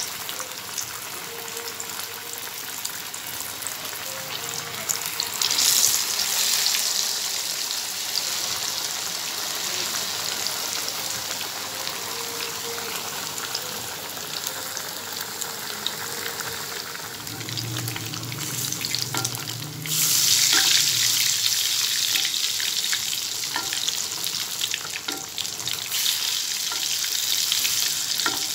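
Marinated fish pieces deep-frying in hot oil in a pan: a steady bubbling sizzle that swells louder about six seconds in and again about twenty seconds in.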